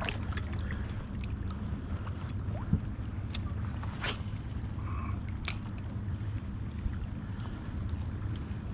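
Steady low rumble of water moving around a kayak hull on a river, with a few faint clicks and taps scattered through it.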